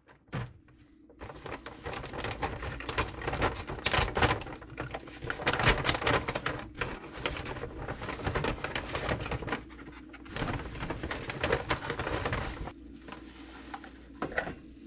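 Plastic and paper grocery bags rustling and crinkling while groceries are unpacked, with a few light knocks as items are set down.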